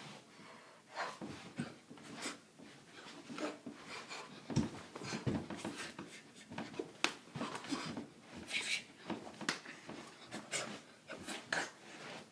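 A boy's breathing and the movement noise of a kung fu form: irregular short swishes of sleeves and scuffs and thuds of feet on the floor, with a heavier stamp about four and a half seconds in.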